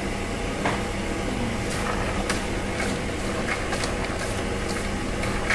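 Soaked chickpeas and split pulses rustling and clicking as a gloved hand tosses them with herbs in an aluminium colander, over a steady background hum.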